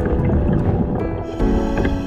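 Background music with held notes and a steady low rumble; the notes change about one and a half seconds in.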